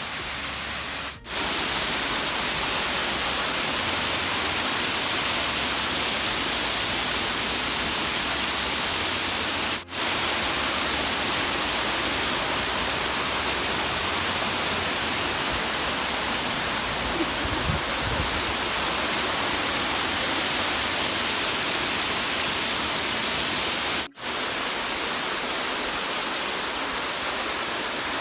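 Waterfall: a steady, loud rush of falling water that dips out for a split second three times.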